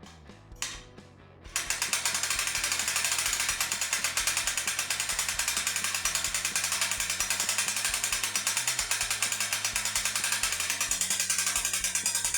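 Hand-cranked 2,500 lb winch ratcheting steadily, its pawl clicking rapidly at about nine clicks a second as the handle is turned to move the sawmill head on its steel cable. The clicking starts about a second and a half in.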